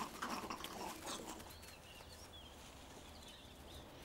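Faint outdoor ambience: small birds chirping now and then, with a patter of light rustling taps in the first second or so.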